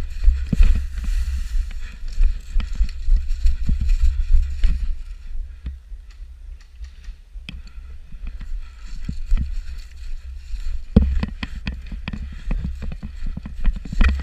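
A player's footsteps and knocking gear on the move, heard through a body-worn camera microphone with a steady deep rumble of wind and handling noise. The knocks come fast and dense about eleven seconds in.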